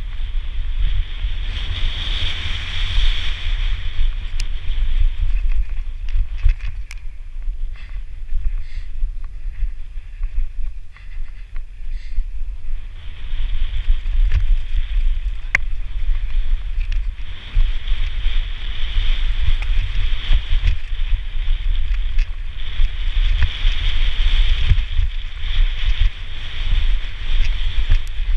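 Wind buffeting the helmet camera's microphone at speed on a downhill mountain bike run, a heavy rumble throughout, with the rattle and clatter of the bike over rough dirt and rocks. A high hiss swells about two seconds in and again through most of the second half.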